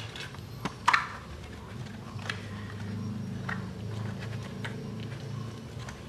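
White cardboard inner trays of a smartphone box being lifted and handled by hand: a few light taps and scrapes, with one sharper knock about a second in. A low steady hum sits underneath from about two seconds in.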